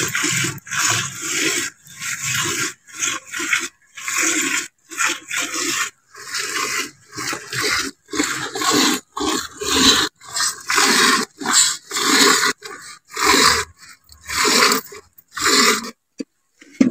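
Water buffalo being milked by hand into a metal bucket: rhythmic squirts of milk hitting the milk in the pail, about two a second with short gaps between.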